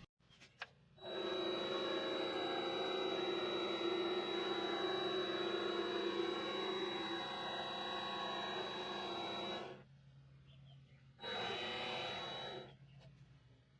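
A small machine running steadily with a thin high whine for about nine seconds, cutting off suddenly, then running again briefly.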